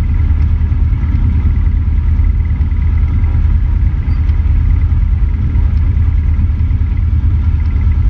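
Cessna 150's four-cylinder Continental O-200 engine and propeller running at low taxi power, a steady low rumble heard from under the wing.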